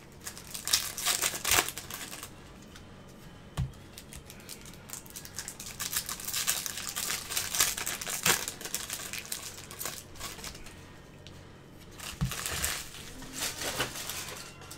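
Bowman baseball card packs being opened and the cards handled: wrappers crinkling and tearing, and a stack of cards flipped through, in three bursts of rustling with a few soft knocks between.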